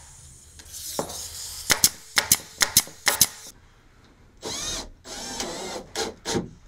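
A run of sharp clicks in the first half, then a cordless Milwaukee drill driver running in two short bursts, speeding up and slowing down as it drives screws through wooden trim, followed by a few more clicks.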